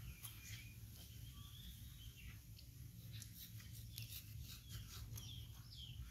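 Faint small clicks and smacks of mango being eaten and cut, over a low steady rumble, with a few faint high chirps.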